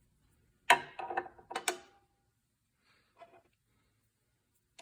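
Metal clinks and clanks as a saw blade and its washer and arbor bolt are fitted back onto a miter saw arbor: a sharp clank about three-quarters of a second in, a few quicker clinks over the next second with a brief ring, then a faint click or two about three seconds in.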